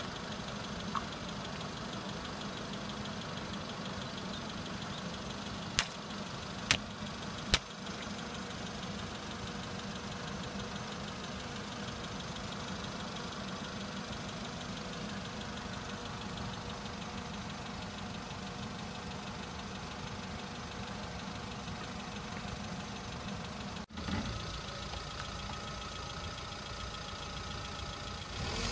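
Kia car's engine idling steadily while its tyre rolls over objects. Three sharp pops come about six to eight seconds in, as water balloons burst under the tyre. Near the end the sound breaks off briefly and the engine note changes.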